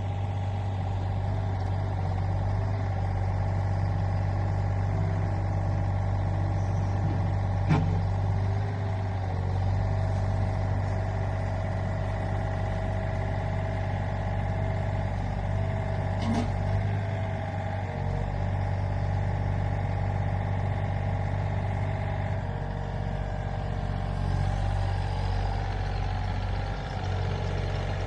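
Hydraulic excavator's diesel engine running steadily with a hum of hydraulics. Two sharp knocks come, about 8 and 16 seconds in.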